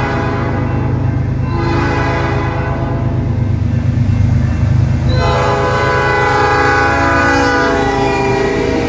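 Nathan P5 five-chime air horn on a GE ES44DC diesel locomotive blowing for a grade crossing as the train approaches and passes, over the heavy rumble of the diesel engines. One blast fades out within the first few seconds, then a louder long blast starts about five seconds in, its pitch sagging slightly as the locomotive goes by.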